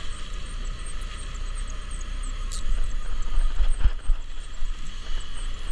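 A boat's engine running steadily with a low rumble, with a single knock about four seconds in.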